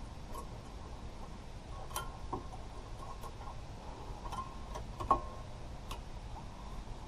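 Light metallic clicks and clinks of brake parts and tools being handled at the front brake caliper, scattered and irregular, with one louder clink about five seconds in, over a steady low hum.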